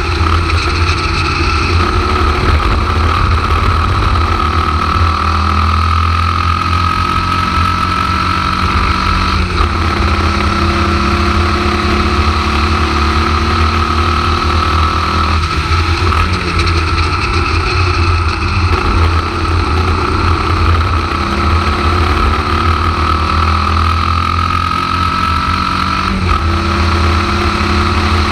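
Air-cooled Volkswagen flat-four of a Formula Vee racing car at full throttle on track, heard from the open cockpit. The engine note climbs steadily and is broken three times by a sudden change in pitch, over heavy low rumble from wind on the microphone.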